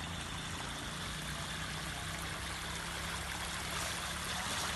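Floodwater flowing, a steady rush of water, with a faint low hum underneath.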